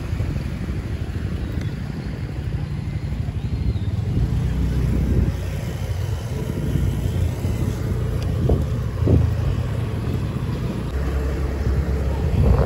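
A vehicle running with a steady low rumble and faint rushing noise.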